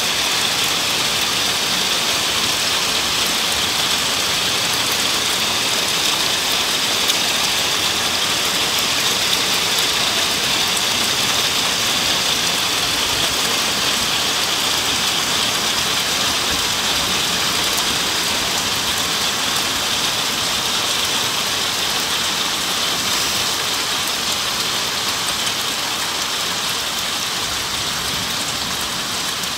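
Heavy rain pouring steadily onto roofs and surfaces, a dense even hiss that eases a little near the end.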